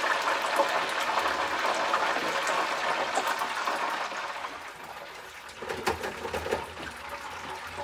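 Electric deep fryer packed with fresh-cut, water-soaked potato fries sizzling and bubbling in hot oil just after the batch went in, a dense crackle that eases off after about four seconds.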